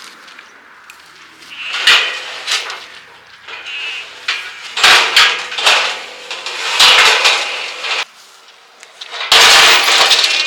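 Metal livestock panels clanging and rattling as they are handled and set up. The clatter comes in several bursts, each leaving a ringing tone, and the longest and loudest comes near the end.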